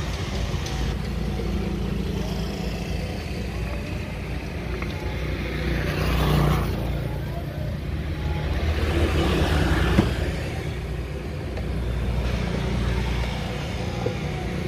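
Steady low rumble of road traffic, with vehicles swelling past twice and one sharp click about ten seconds in.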